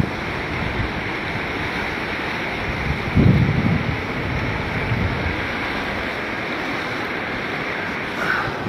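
Rushing floodwater, a steady loud rush of water, with gusts of wind buffeting the microphone, the strongest about three seconds in.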